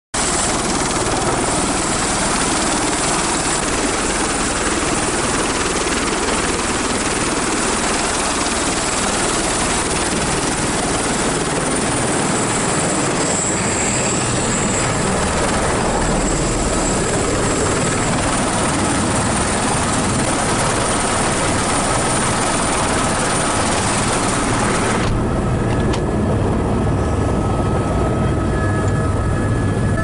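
Helicopter running on the ground with its rotor turning: a loud, steady rush of turbine and rotor noise. About 25 seconds in, the sound turns duller, with a few steady whining tones, as heard from inside the cabin.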